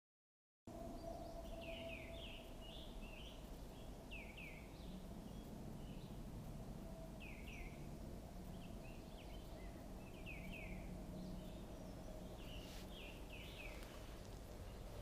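After a brief silence at the start, faint steady outdoor background noise with a small bird repeating short downward chirps in groups of two or three every second or two.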